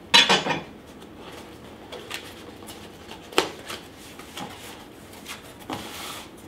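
A small cardboard box being handled and opened: a loud scrape right at the start, a sharp knock about three and a half seconds in, then the cardboard flaps rustling open near the end.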